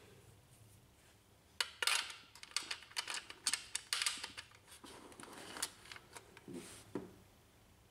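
Small metal contact being pressed into the black plastic frame of a Brother HL-1110 laser printer by hand: a run of light clicks and scrapes of metal on plastic. It starts about a second and a half in and stops near the end.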